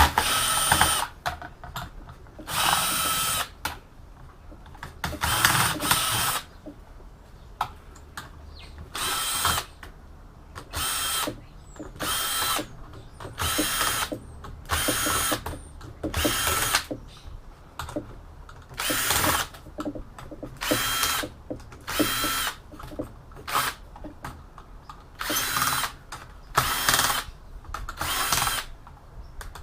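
Cordless power screwdriver backing out screws from an all-in-one PC's casing. It runs in about sixteen short bursts with a steady whine, each under a second or so, with brief pauses between.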